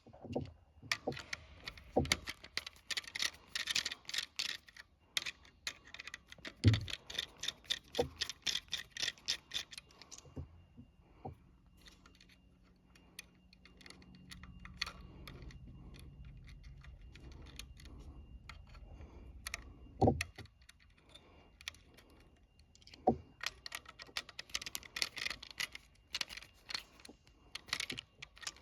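Rapid small clicks, scrapes and rattles of hand work on a sprinkler waterflow switch's wiring, as wires and terminal screws are handled, with a few louder knocks. A faint steady low hum runs through the middle.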